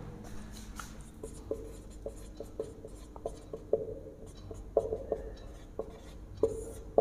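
Marker pen writing a word on a whiteboard: a quiet run of short squeaks and taps, one stroke after another.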